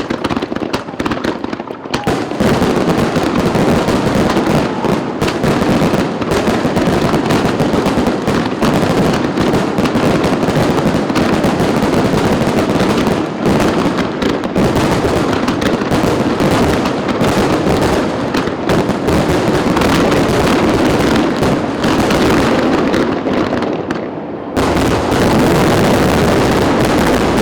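Fireworks grand finale: shells bursting in a dense, unbroken barrage of bangs and crackle. The barrage dips briefly about 24 seconds in, then resumes at full strength.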